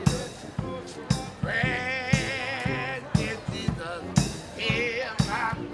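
Live band music: a steady drum beat about two strokes a second under a slow lead melody with heavy vibrato, in the run of a gospel number.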